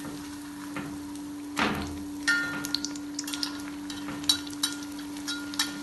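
Crumbed potato patty frying in hot oil in an iron kadai: the oil crackles and pops while a perforated steel skimmer scoops oil over the patty, clinking against the pan with a short metallic ring several times from about two seconds in. A steady low hum runs underneath.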